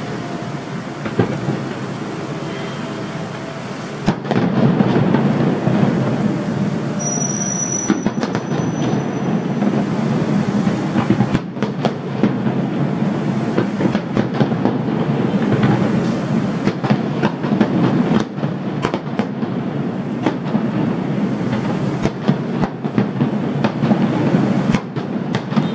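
Fireworks display going off: a continuous rumbling barrage of bangs and crackles that grows much denser and louder about four seconds in.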